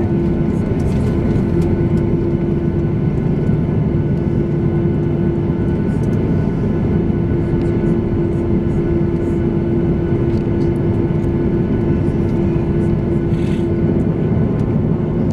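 Boeing 737-800's CFM56-7B turbofan engines running at low power while the airliner taxis, heard inside the cabin over the wing: a steady rumble with a steady hum on top.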